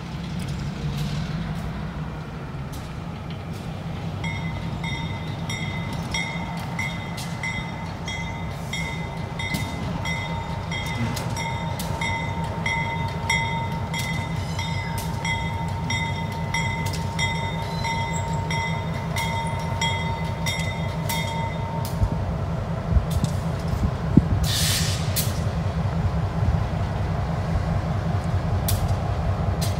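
Diesel switcher locomotive running with a steady low throb, and a bell ringing in even, repeated dings from about four seconds in until a little past twenty seconds. A short hiss like an air release comes a couple of seconds after the bell stops.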